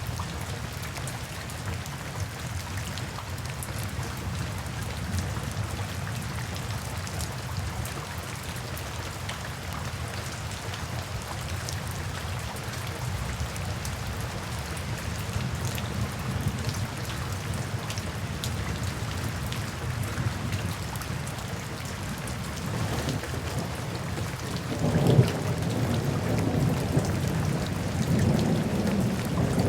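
Steady rain with a low rumble of thunder that swells in the last several seconds.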